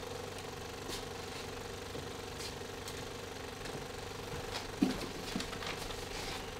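Film projector running in the booth, a steady mechanical whirr and hum. There is a short knock about five seconds in.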